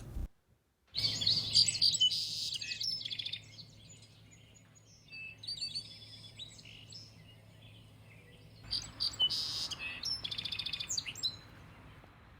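Birds singing in three bursts of rapid high chirps, over a faint steady low hum.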